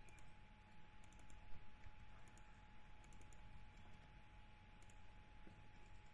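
Faint computer keyboard keystrokes in a few short clusters as a password is typed, over a faint steady whine.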